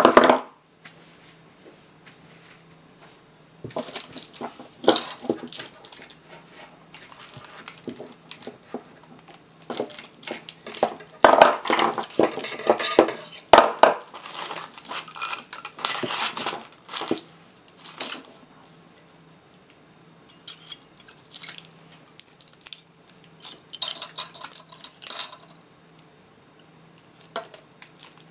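Metal clinking, scraping and clatter from pliers working nickel strips off 18650 lithium-ion cells and from the steel cells knocking on a tabletop. It comes in irregular bursts, busiest in the middle, with a quiet stretch of a few seconds near the start.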